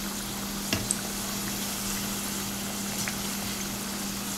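Filled flour-pastry dumplings deep-frying in hot oil, sizzling steadily, while a perforated metal skimmer turns them over; one light tap about three quarters of a second in.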